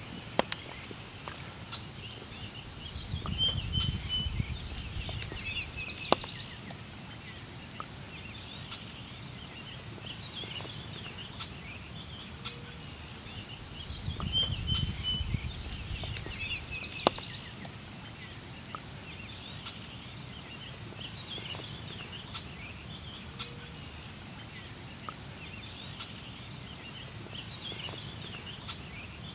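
Faint outdoor wetland ambience: a steady hiss with scattered short bird chirps and light clicks, and a low rumble that swells twice. The same stretch of about eleven seconds seems to repeat.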